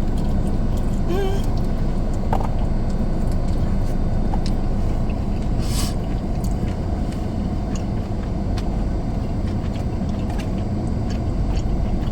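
Steady low rumble of a car's cabin with the engine running, with faint scattered clicks and a brief hiss-like rustle a little before the middle.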